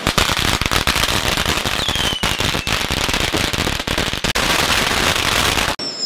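A long string of firecrackers going off in a dense, continuous crackle of rapid bangs, cutting off suddenly near the end.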